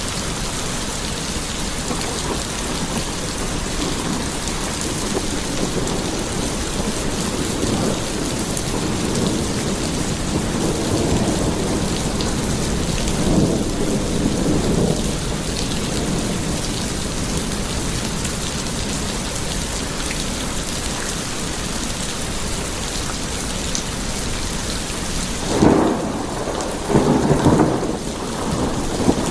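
Steady rain with rumbles of thunder, louder once about midway and again in several surges near the end.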